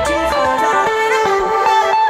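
Background music led by guitar, playing a stepping melody of pitched notes.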